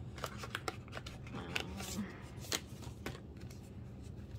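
Photocards and small card-type album packages being handled and shuffled: an irregular run of light clicks, taps and short rustles.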